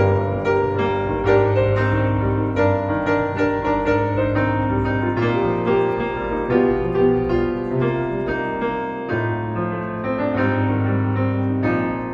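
Background piano music: a gentle solo piano piece with notes struck one after another over a sustained bass note.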